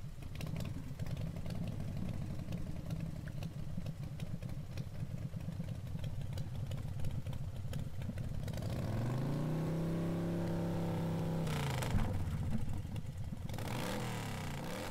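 A camera drone's electric motors and propellers humming steadily, rising in pitch about nine seconds in, holding, then dropping near twelve seconds and swinging up and down again near the end as the drone manoeuvres.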